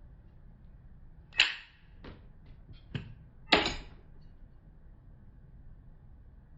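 A few sudden clacks and knocks, as of something hard being handled or set down, over a faint steady low hum. Two of them are louder, about two seconds apart, and each trails off briefly.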